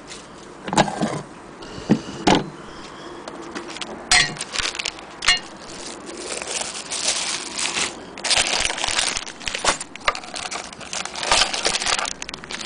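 Handling noise: a few sharp knocks and clicks from the wooden case and metal accessory tin, then crinkling of clear plastic bags with metal bobbins and small parts clinking inside them.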